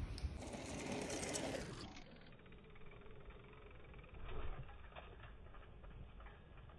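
Mountain bike rolling over dirt jumps, its freehub ticking rapidly as the rider coasts, with tyre noise on the dirt. The first two seconds are a louder rush of tyres on a leaf-covered trail, and there is a brief louder scuff about four seconds in.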